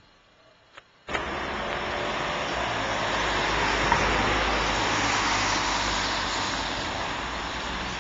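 Road traffic noise heard from a moving vehicle: an even rush of engine and tyre noise with a low rumble. It starts abruptly about a second in, swells, then slowly eases.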